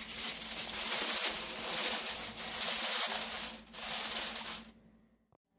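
Aluminium foil crinkling and rustling as a sheet is pressed down over a disposable aluminium tray, stopping abruptly near the end.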